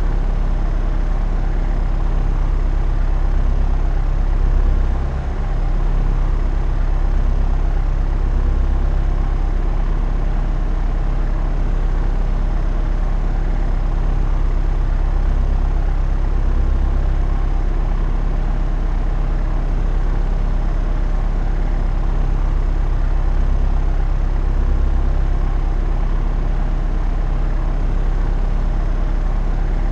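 Propeller aircraft in flight: a steady drone of engine and propeller, with a brief swell about four to five seconds in.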